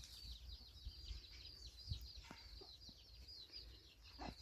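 Faint, rapid high-pitched chirping from birds, several short falling chirps a second, with a couple of soft taps.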